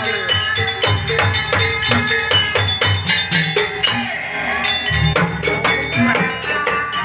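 Javanese jaranan campursari gamelan music played live through a large PA sound system: kendang drums beat a steady rhythm under quick strikes on saron metallophones.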